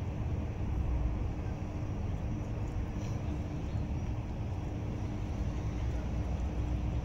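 Steady low rumble of outdoor background noise with a constant low hum.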